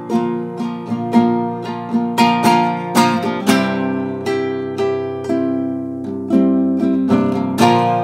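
Nylon-string classical guitar played solo, chords picked and strummed by hand in a steady run of strokes, the notes ringing on between them.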